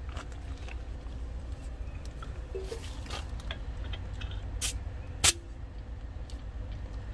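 A digital tire pressure gauge's chuck pressed onto a dual-wheel valve stem extension: a few faint ticks, then two sharp clicks less than a second apart about two-thirds of the way through, over a steady low rumble.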